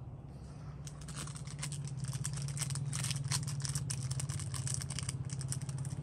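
Rapid, irregular metallic clicking and rattling from a Zippo lighter being handled, starting about a second in and stopping near the end, over a steady low hum.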